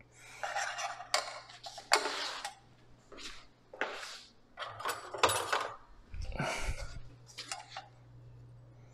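Metal spoons scraping and clinking against a stainless steel saucepan and against each other as thick cream is scraped off them: a string of irregular scrapes and sharp clinks.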